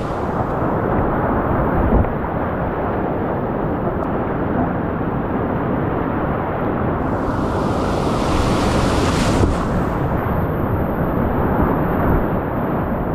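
Steady, loud rushing of whitewater on a steep creek, with a brighter splashing hiss for a couple of seconds a little past the middle.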